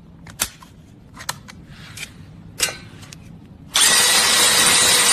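A few light clicks of a screwdriver bit and its magnetic ring being handled, then an electric drill/driver runs at full speed for about a second and a half and stops abruptly.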